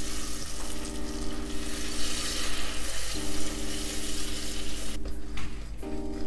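A knob of butter sizzling as it melts into hot caramelised sugar in a stainless steel pot while a wooden spoon stirs it. The sizzle thins out about five seconds in.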